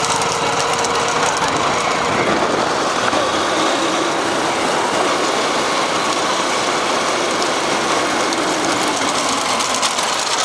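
Vehicle engines running with steady road noise, loud and unbroken, with a few faint wavering tones over it.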